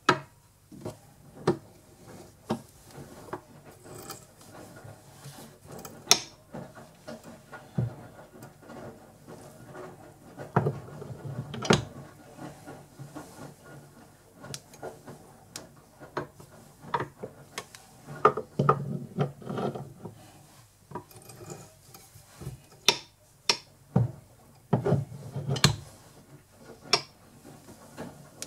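An M8 tap turned by hand with a T-handle tap wrench, cutting thread into a part held in a small lathe's chuck: irregular clicks, creaks and scraping as the tap cuts and the wrench is worked round, with a few louder clusters of knocks.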